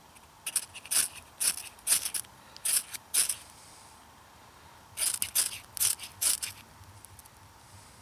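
Knife spine scraping down a ferrocerium rod (fire steel), each stroke a short sharp rasp: a run of about six quick strokes, a short pause, then about five more, sparking onto damp birch bark to light it.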